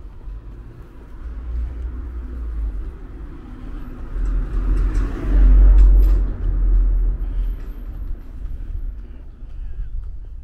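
A car drives past on the street, its engine and tyre noise swelling to a peak about halfway through and then fading away, over a deep rumble.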